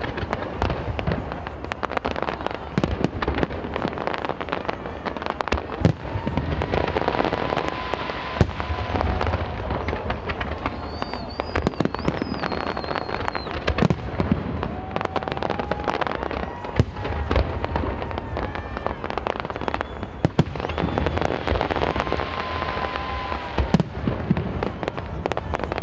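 Aerial fireworks display: shells bursting in a dense, continuous string of bangs and crackles, many reports overlapping.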